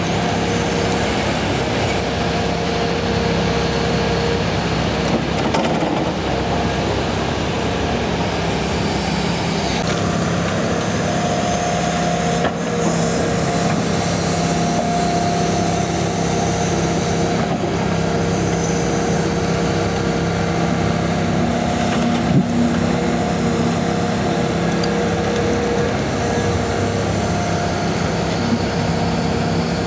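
Hitachi Zaxis 280LC-3 crawler excavator at work, its diesel engine running steadily under load with shifting tones from the hydraulics. There are two short knocks, about twelve and twenty-two seconds in.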